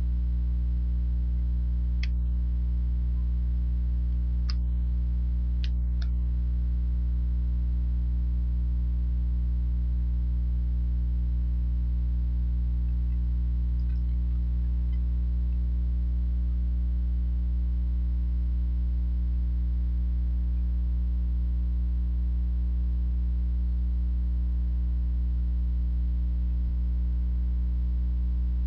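Steady electrical mains hum, a low buzz with a stack of even overtones, unchanging throughout. A few faint sharp clicks sound in the first several seconds.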